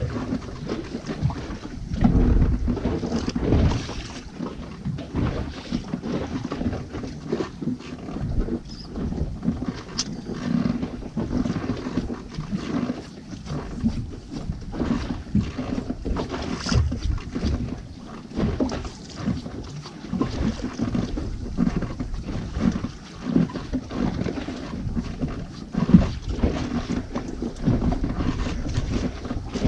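Wind buffeting the microphone on a small boat at sea, with irregular knocks and rustles.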